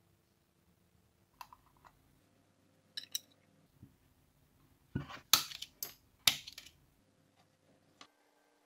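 Scattered sharp clicks and taps of small hard objects, a few at first and then a quick cluster of louder ones past the middle.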